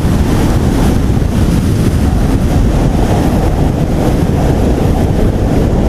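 Heavy wind buffeting the camera microphone on an electric sportbike riding at highway speed, a steady loud rush of noise heaviest in the low end.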